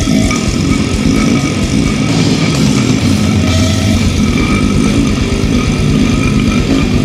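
Death metal recording: heavily distorted guitars over fast, dense drumming, loud and unbroken.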